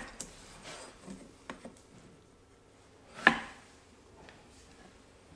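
A blacksmith's hammer knocking once on the anvil about three seconds in, with a short ring after it. A few faint light taps come in the first two seconds.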